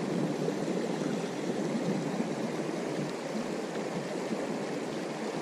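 Steady rush of a small creek's running water.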